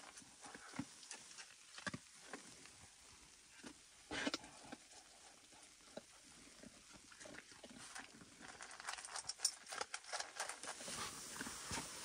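Husky eating dry kibble from a metal bowl: irregular crunching and clicking of the food as it chews, with a louder crunch about four seconds in and busier clicking near the end.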